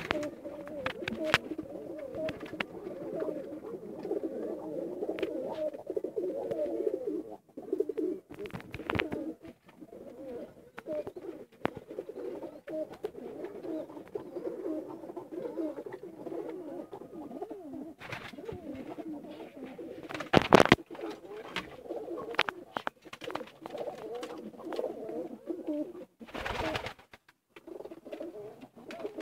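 A flock of pigeons cooing together, many overlapping coos. There are scattered clicks, and two short, loud noises stand out about twenty and twenty-six seconds in.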